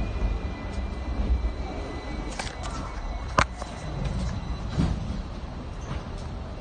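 Interior of a double-decker tram running: a steady low rumble, heaviest at first and then easing, with a few sharp knocks. The loudest knock comes about three and a half seconds in.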